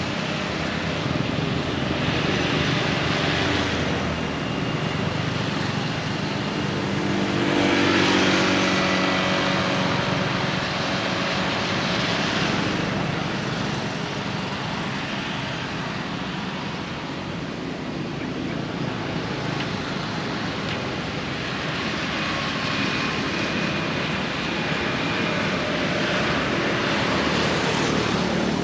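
Road traffic: a steady noise of passing vehicles that swells and fades several times, loudest as one vehicle passes about eight seconds in.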